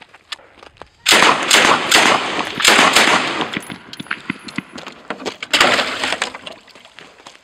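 Water splashing and churning in a plastic tub as an IWI Negev 5.56 mm light machine gun is plunged into it for a water test. Two loud spells: one of about two seconds starting about a second in, and a shorter one a little after five seconds.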